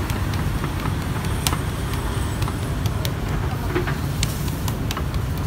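Kebab flatbread frying in hot oil, giving scattered sharp crackles and pops, over a steady low rumble of road traffic.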